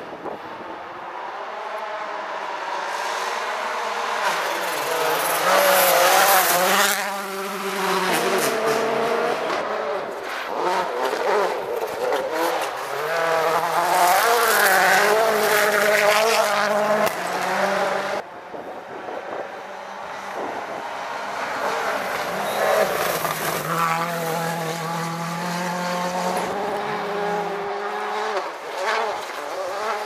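Turbocharged four-cylinder World Rally Cars at full speed on a gravel forest stage, engines revving up and down through the gears as one car approaches and passes. The sound drops abruptly about two-thirds in, and a second car, a Citroën DS3 WRC, is then heard building up and going by.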